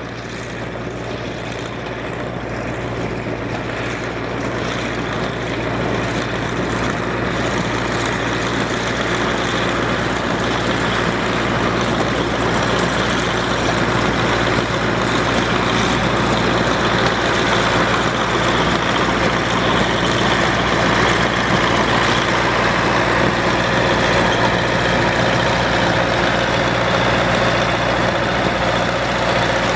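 John Deere 800 self-propelled windrower's 225 cubic inch Chrysler slant-six gasoline engine running steadily as the machine swaths wheat. The sound grows louder over roughly the first ten seconds, then holds steady.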